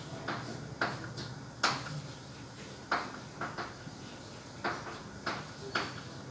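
Chalk writing on a blackboard: irregular short taps and scrapes of the chalk against the board, about a dozen strokes.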